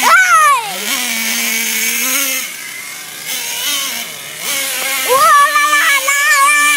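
Remote-control toy car's electric motor whining, its pitch rising and falling as the car speeds up and slows, then holding a long steady whine from about five seconds in.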